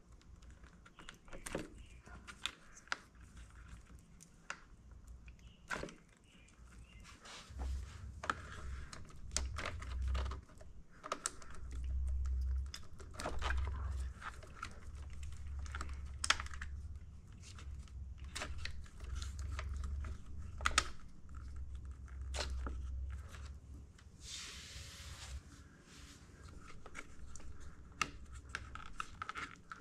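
Plastic wiring-harness connectors on a Honda Motocompacto electric scooter being pulled apart and handled: scattered sharp clicks and rustling of cables. A low rumble runs underneath from about a quarter of the way in, with a short, louder rustle near the end.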